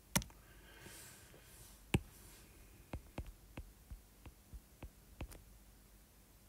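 Stylus clicking and tapping on a tablet screen while handwriting: two separate sharp clicks in the first two seconds, then a run of quicker, lighter taps from about three seconds in as the figures are written.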